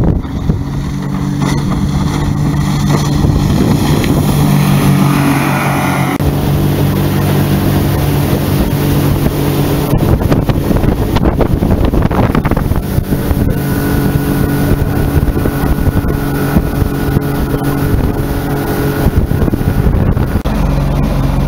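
A 50 hp outboard motor on a 13 ft aluminium boat running at speed with a steady engine note, under wind buffeting the microphone and water rushing and slapping against the hull.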